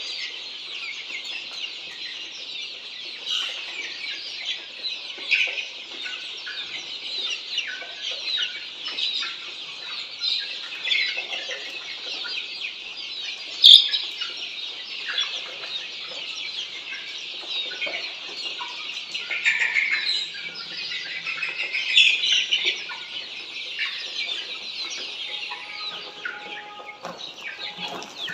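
A large brood of Australorp chicks peeping continuously, many high-pitched chirps overlapping without pause. A single sharp click stands out about fourteen seconds in.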